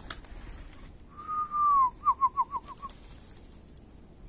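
A man whistling: one long clear note that slides down in pitch at the end, then a quick run of short falling whistles.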